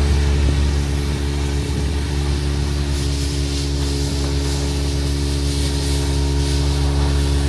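Guzzcavator vacuum excavator running steadily: a constant low engine-and-blower drone with an even hiss over it.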